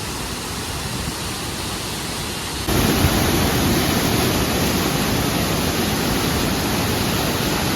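Steady rushing of a waterfall's falling water. About three seconds in it suddenly gets louder and brighter, then holds steady.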